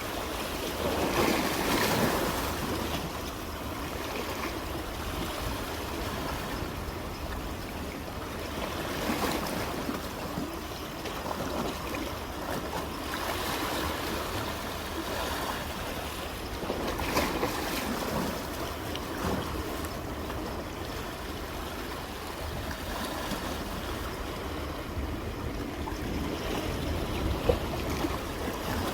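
Sea waves breaking and washing on the shore, a continuous surf noise that swells louder at about one, nine and seventeen seconds in.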